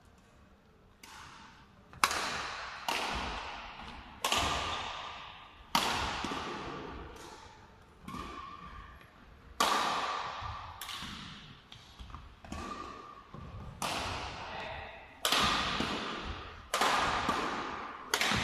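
Badminton rackets striking the shuttlecock in a doubles rally: about a dozen sharp hits, roughly one every second or so with a few seconds' lull in the middle, each ringing on in the echo of a large sports hall.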